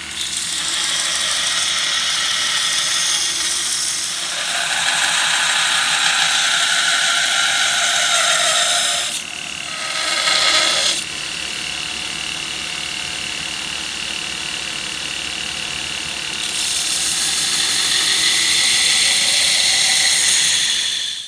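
Power grinder abrading a hardened coil-spring steel knife blade: a steady hiss of steel on abrasive that grows louder and softer in stretches of a few seconds as the pressure on the blade changes, with a steady high whine from about halfway through. It cuts off abruptly at the end.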